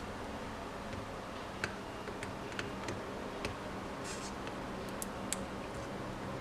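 Scattered light clicks and ticks from hands working a rim stripe decal onto a motorcycle wheel, over a steady low hum.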